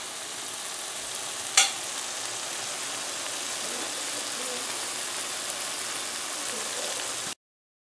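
Stewed cabbage sizzling steadily in a pot on the stove, with a single sharp click about one and a half seconds in. The sizzle cuts off abruptly near the end.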